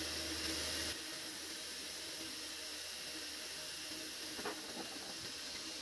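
Steady background hiss, dropping slightly in level about a second in, with two faint taps about four and a half and five seconds in.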